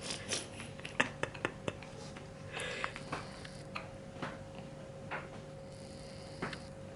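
Newborn baby with hiccups: short, sudden hics and small sharp clicks, a quick run of clicks about a second in, then soft breathy hics roughly once a second.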